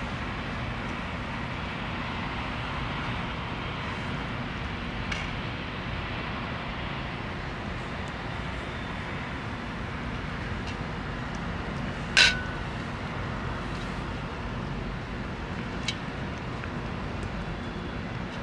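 A cat eating from a metal dish against a steady low rumble of background noise, with a few faint clicks. About twelve seconds in comes one sharp clink with a brief ring, the metal dish being struck.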